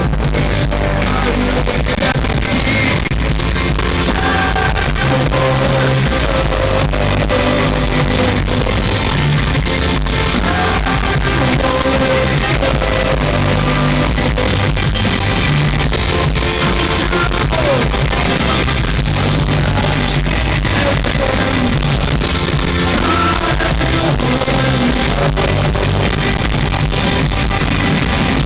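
Live rock band playing loud through a concert PA, with electric guitar, drums and a male lead vocalist singing.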